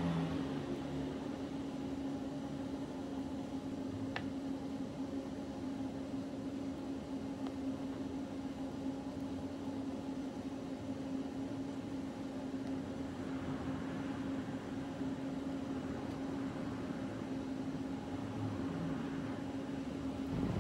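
Steady machine hum with a low tone, like an appliance or fan running in the room, and a single light click about four seconds in.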